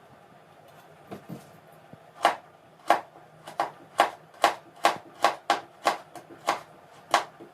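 Knife chopping carrots into small pieces on a cutting board: a couple of soft knocks, then from about two seconds in a steady run of sharp chops, about three a second.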